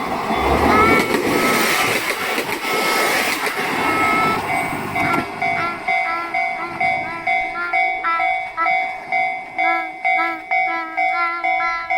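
Level-crossing bell ringing in a steady repeating rhythm, about two strokes a second, while a train runs over the crossing. The train's rumble fades after about five seconds and the bell rings on alone.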